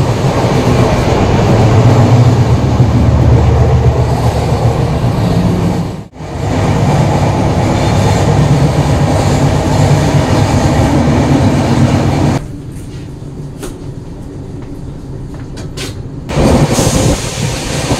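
Indian Railways express train running, heard from inside the coach vestibule: a steady, loud rumble with rail clatter. It breaks off briefly about six seconds in and goes much quieter for a few seconds near the end.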